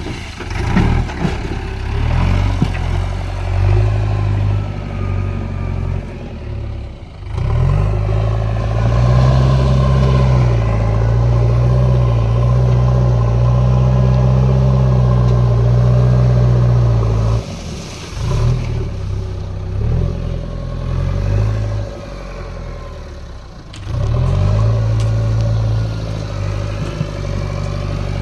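Diesel engine of a JCB backhoe loader working, revving up and holding high under load for stretches and dropping back toward idle three times.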